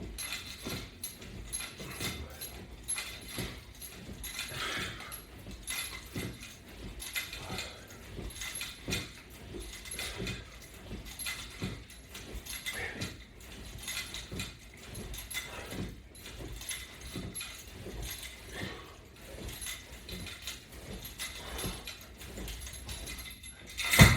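Workout straps and their metal latch-bar hardware clicking, creaking and clinking irregularly as a person does repeated crunches, with a louder knock near the end.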